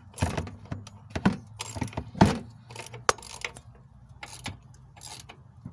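Metal wrench working the rusted top nut of a front shock absorber as it is loosened: irregular metallic clicks and clinks, the loudest a little over two seconds in.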